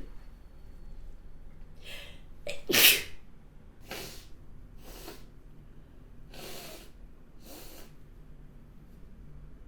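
A woman's hay-fever sneeze: a sharp intake of breath, then one loud sneeze about three seconds in, followed by four shorter noisy breaths about a second apart.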